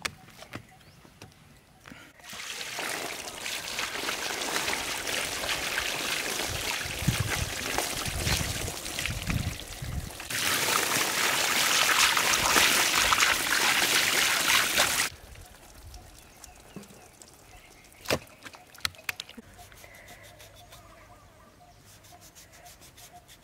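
Running water splashing and sloshing, with a heavier, louder stream for about five seconds that stops abruptly; a few light clicks and knocks follow.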